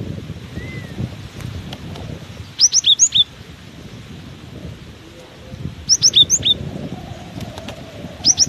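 Cinereous tit singing: three quick bursts of four or five sharp, high chirps, about three seconds apart, over a low rumble of wind on the microphone.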